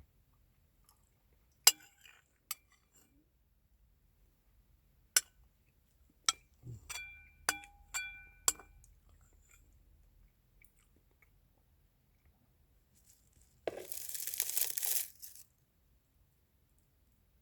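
Eating utensils clinking against dishes during a meal, about eight sharp clicks, several ringing briefly. Near the end comes a rustling, crinkling burst lasting about a second and a half.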